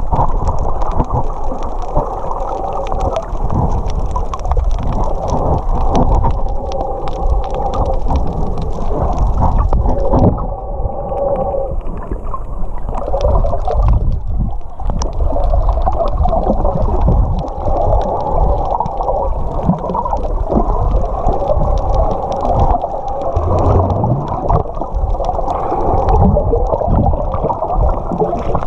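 Muffled water sloshing and gurgling against a camera held in or under the sea while snorkeling, with scattered clicks and knocks.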